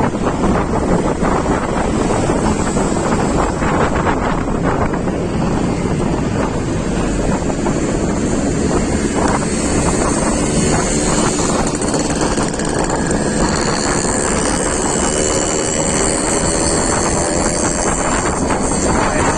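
Wind buffeting the microphone of a moving vehicle in a steady loud roar, with an engine tone rising slowly in pitch over the last few seconds.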